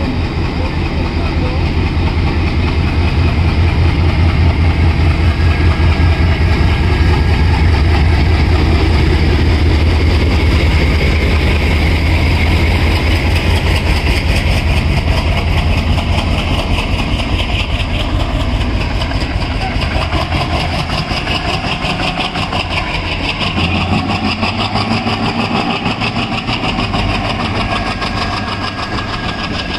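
WDG-3A ALCO diesel locomotive pulling out under power, its engine giving a loud, deep, fast throb as it passes. In the second half the engine sound fades and the passenger coaches roll past.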